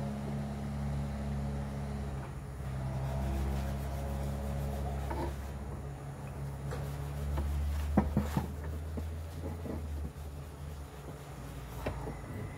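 A few sharp metal clinks from hand work on a car's steering tie rod, the loudest about eight seconds in, over a steady low hum.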